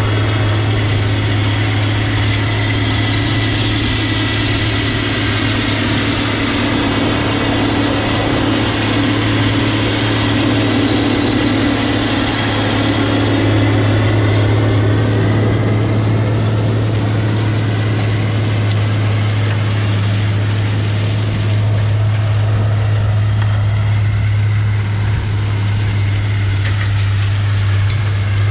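Large diesel tractor engine running steadily, a constant low hum.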